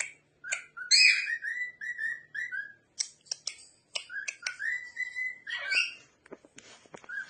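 Cockatiel whistling its song: phrases of short, clear notes and a few held notes, mixed with sharp clicks, broken by brief pauses.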